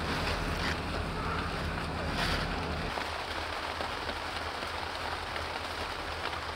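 Steady outdoor background noise: a low rumble with an even hiss over it, a few faint clicks, and a brief brighter rustle about two seconds in.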